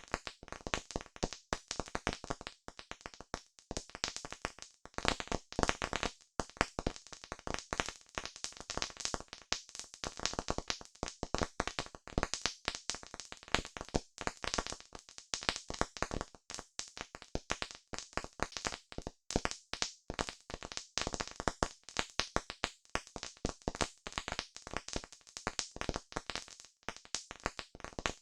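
Campfire crackling: a dense, irregular run of sharp pops and snaps from burning wood, with no flames roaring or wind.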